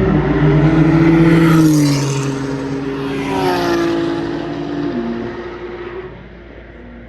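Porsche 991 GT3's naturally aspirated flat-six revving up under acceleration, its pitch climbing. About two seconds in the pitch drops at a gear change, then climbs again before stepping down near five seconds. It goes quieter as the car eases off in the last second.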